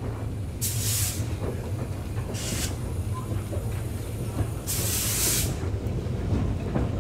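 Jones and Laughlin no. 58, a narrow-gauge steam switcher locomotive, starting off slowly: three loud hissing blasts of steam about two seconds apart, over a steady low rumble.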